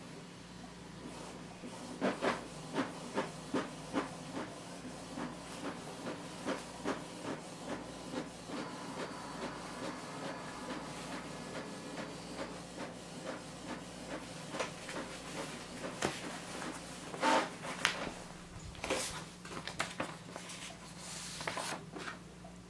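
Canon PIXMA MG7170 inkjet multifunction printer running a copy job: a steady hum with a regular series of mechanical clicks as the sheet is fed out. Near the end there is paper rustling as the printed pages are handled.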